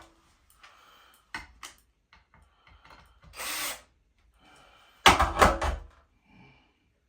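Tool and hardware handling during a ceiling fan installation: a few sharp clicks, a short noisy burst about three and a half seconds in, and a louder clattering burst lasting about a second near five seconds in.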